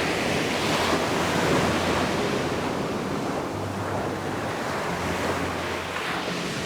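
Ocean waves breaking and washing up a beach: a surge of surf that swells right at the start, is loudest a second or two in, then slowly eases off. Some wind noise on the microphone.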